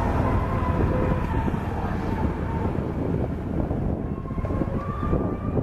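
A motorcycle running steadily along a road, with wind rumbling on the microphone.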